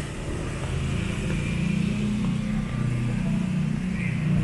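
A motor vehicle engine running close by: a low, steady drone that comes up about a second in and holds.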